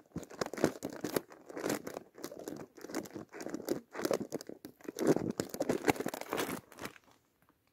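Clear plastic minnow bag of water crinkling and rustling as a hand digs inside it for a bait minnow: a run of irregular crackles that stops near the end.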